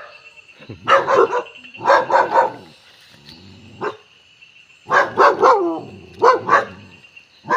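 Dog barking in quick clusters of two or three barks, with a pause of a second or so between clusters.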